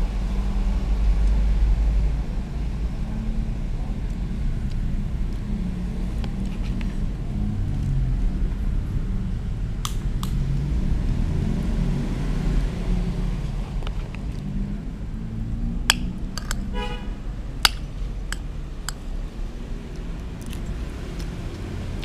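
A steady low rumble, with a spoon clinking against the dishes a few times, once around ten seconds in and twice later on.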